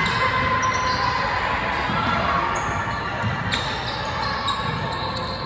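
Basketball bouncing on a gym's hardwood court during play, amid players' and spectators' voices echoing in the hall.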